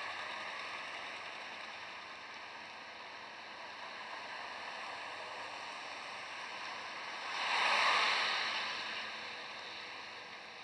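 Road traffic on a wet street: tyres hissing as cars pass, with one vehicle passing close about eight seconds in, its noise swelling and fading.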